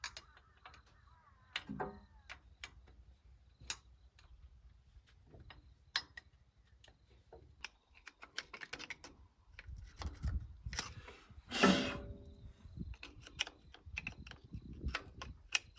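Scattered clicks, knocks and clinks of hand tools working at bolts on a tractor's metal housing, busier in the second half, with one louder, longer metallic sound about twelve seconds in.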